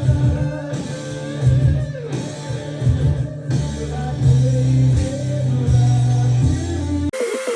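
Rock music with guitar and a strong beat. About seven seconds in it cuts abruptly to a thinner-sounding passage without the bass.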